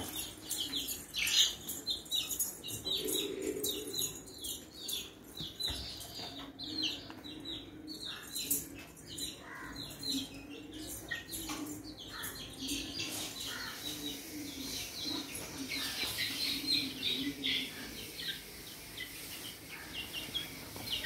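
Chicks peeping: many short, high, falling peeps in quick succession, going on throughout.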